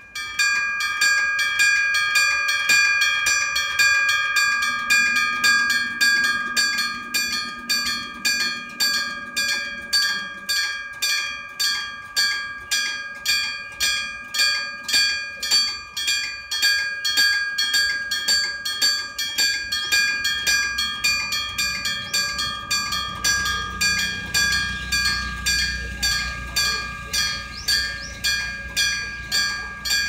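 Electric-bell (denshō) level-crossing warning bell starting up and ringing in rapid, evenly repeated strikes, about two a second: the crossing is warning of an approaching train. A low rumble builds under it in the second half.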